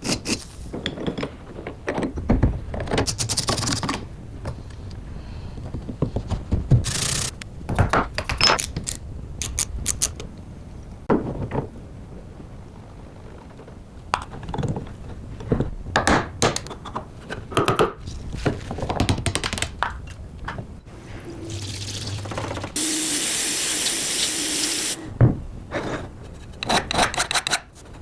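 Rusty antique pliers and tools being handled and worked on: a string of separate knocks, scrapes and rattles, with a steady hissing spray for about two seconds near the end.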